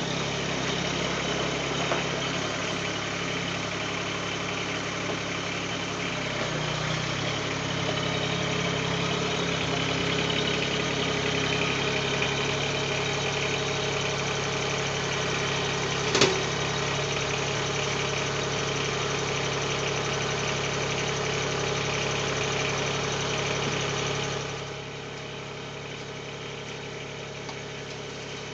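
Mahindra eMax 20S HST tractor's diesel engine running steadily at working speed, about 1600–1800 rpm, while it drives the backhoe hydraulics. There is one sharp metallic clank about halfway through, and the engine sound drops to a quieter steady run near the end.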